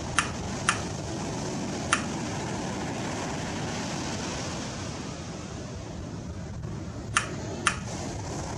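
Steady rushing beach ambience, broken by five short, sharp, high clicks: two near the start, one about two seconds in, and two close together near the end.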